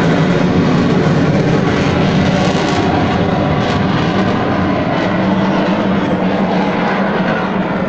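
Jet aircraft flying a display pass overhead, its engine noise loud and steady, slowly fading as it moves away.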